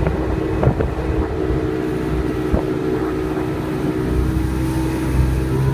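A motorboat's engine running steadily under way, with a couple of sharp knocks.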